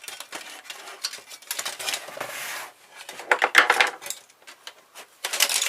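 Sheet-metal and small parts of a car stereo clinking and rattling as it is taken apart by hand, with a scraping sound about two seconds in and a loud burst of clatter a little after three seconds.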